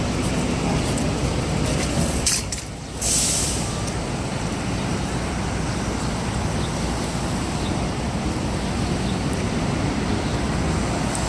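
City street traffic: a steady rumble of vehicles, with a short, high hiss about three seconds in.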